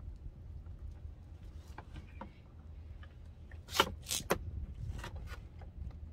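Light plastic and metal clicks and rattles of the door-handle release cable being seated into the inside door handle, with a cluster of sharper clicks about four seconds in.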